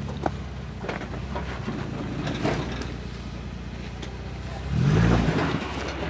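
Toyota Land Cruiser FZJ80's straight-six engine running at low revs as it crawls over rock, with a brief rise in revs about five seconds in.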